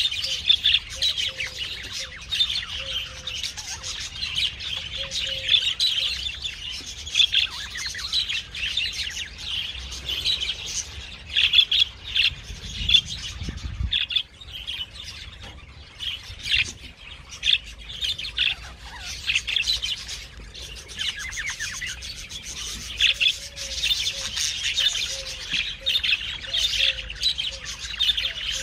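Parrots chirping and chattering: a dense run of short, high chirps that goes on without a break.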